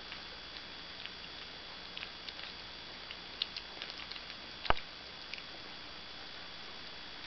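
Puppies eating from a plastic dish: small scattered clicks and ticks of chewing and food knocking against the dish, with one sharper, louder click about two-thirds of the way through.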